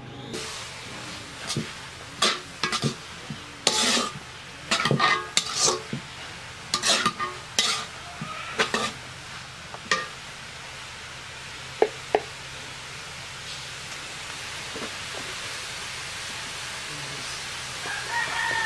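Sliced onions sizzling in oil in a large metal kadai, with a metal spatula scraping and knocking against the pan as they are stirred. The stirring strokes come thick and fast for the first ten seconds, then give way to a steady sizzle with two light clicks.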